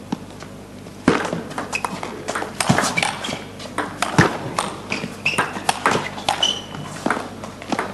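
Table tennis ball clicking off rackets and table in a long rally of attacking strokes against a defender's chops. The clicks come in quick irregular succession, starting about a second in.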